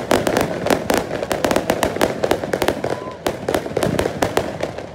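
Aerial fireworks display going off in a rapid, continuous volley of sharp bangs and crackles, many reports a second.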